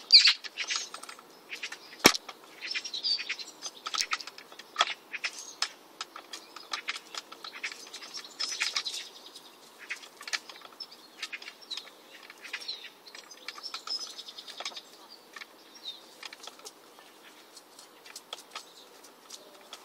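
Chickens pecking at sweetcorn and tomatoes in a hanging wire treat cage: a fast, uneven run of sharp pecking clicks, with a louder knock about two seconds in. Soft hen chirps come now and then.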